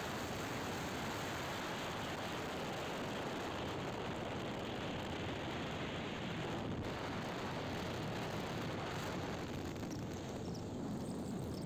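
A motorcycle riding on the open road: a steady rush of wind and road noise over the microphone, with no distinct engine note standing out.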